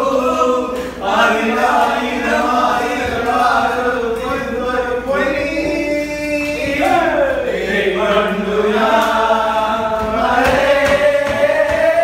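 Several voices singing together in a chant-like song, with held notes and a falling slide about seven seconds in.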